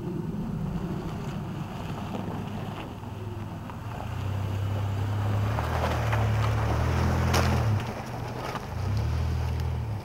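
1996 Toyota Tacoma pickup's engine running as the truck drives down a gravel slope and past close by, growing louder from about four seconds in, with tyres crunching over gravel and stones as it passes. The engine note drops briefly about eight seconds in, then picks up again.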